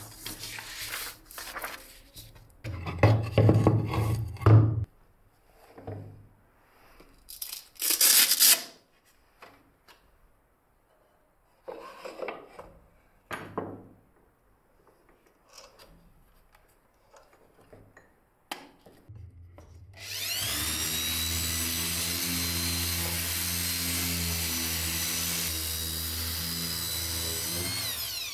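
Scattered rustles, rubs and knocks from handling paper and workpieces, then a Makita random orbital sander spins up with a rising whine about two-thirds of the way through and runs steadily while sanding a plywood board, winding down at the very end.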